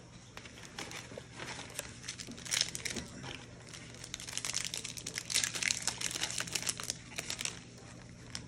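A trading-card pack's plastic foil wrapper crinkling and rustling in irregular bursts as it is torn open and handled. The cards are then pulled out of it.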